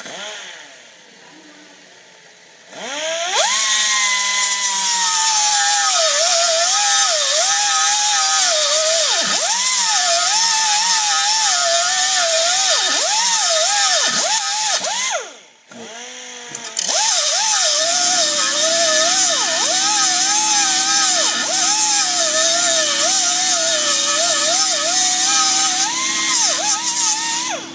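Small pneumatic cut-off wheel cutting off a steel edge of a new 1971 Mustang upper control arm, a trim needed because that edge hits the body. Its whine wavers up and down in pitch as the disc bites. It stops for about a second around the middle and then cuts again, and a steady low hum sets in soon after.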